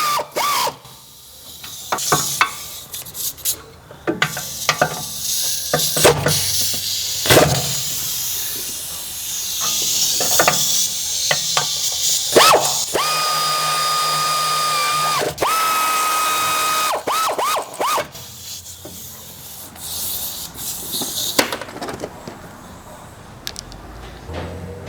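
Cordless power tool running in repeated spurts with a steady whine while driving in the mounting bolts of a new wheel hub bearing. Its longest runs come about halfway through, and sharp metal clicks and knocks of tools and parts fall between the runs.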